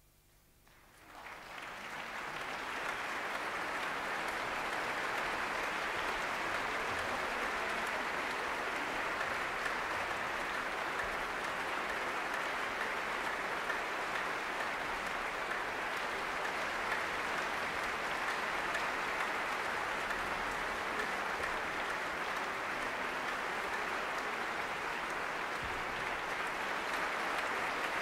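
Concert hall audience applauding. The applause breaks out about a second in, swells over a couple of seconds and then holds steady.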